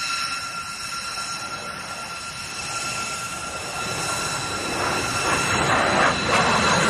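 B-2 Spirit stealth bomber's jet engines flying past: a steady high whine, with the rushing jet roar swelling louder through the second half.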